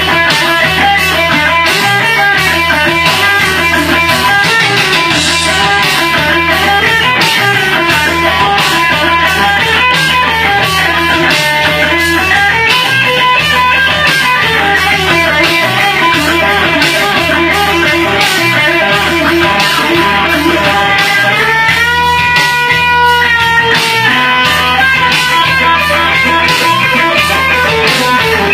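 Electric guitar solo over a rock backing track with bass and a steady beat, running through quick melodic lines. About three quarters of the way through, one long note is bent up, held with vibrato, then released.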